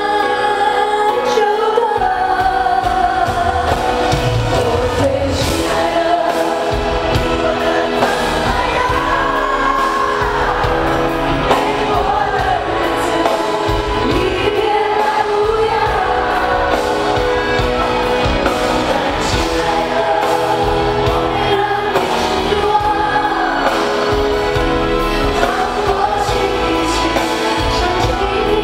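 A female singer's voice carrying a slow pop ballad over a live band with keyboards, played through an arena's sound system; the bass and drums come in about two seconds in.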